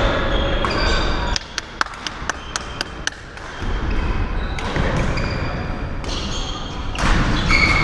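Badminton hall sounds: a quick run of about ten sharp racket hits on shuttlecocks about a second and a half in, with short high squeaks of court shoes on the floor around them.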